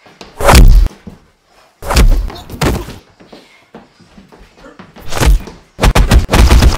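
Film-style punch sound effects: single heavy hits with short gaps between them, then a quick flurry of about four hits near the end.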